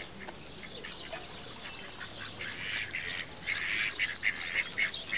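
Mallards calling, a quick series of short quacks that starts up about two seconds in and grows louder, about two or three a second: the ducks chattering among themselves.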